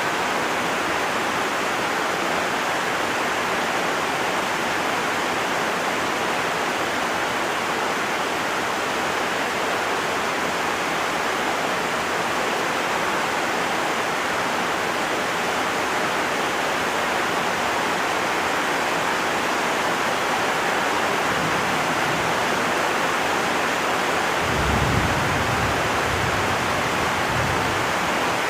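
Heavy rain falling in a steady, even hiss. A brief low rumble comes in near the end.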